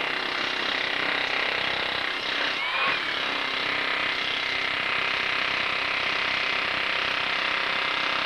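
Handheld demolition hammer with a chisel bit chipping up a concrete floor. It hammers steadily and rapidly without a pause.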